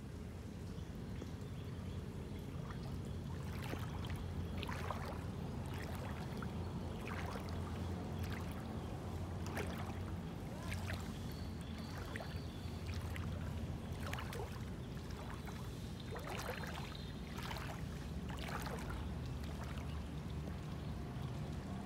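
Floodwater sloshing and splashing at irregular intervals, over a steady low rumble.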